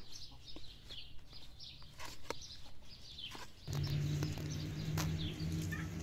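Small birds chirping over and over, with quick falling chirps. About two-thirds of the way through a low, steady hum comes in and becomes the loudest sound, and right at the end a rooster starts to crow.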